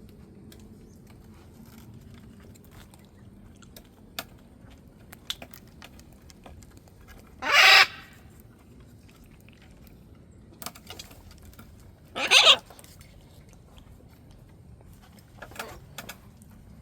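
A parrot squawks loudly twice, each a harsh call of about half a second, several seconds apart, then gives a fainter squawk near the end. Small scattered clicks sound in between.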